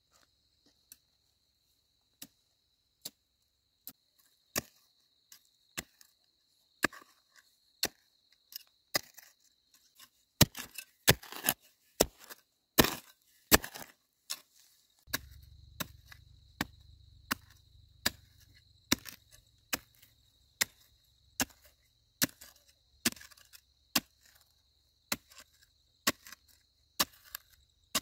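Bamboo being chopped with a blade: sharp strikes, one to two a second, louder and closer together around the middle.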